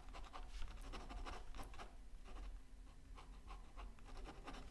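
Pen scratching on toned paper in many quick, short, irregular strokes as texture is worked into an ink drawing.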